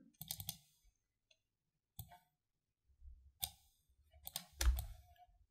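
Faint computer mouse clicks: three in quick succession at the start, then single clicks spaced a second or more apart, and a few more near the end.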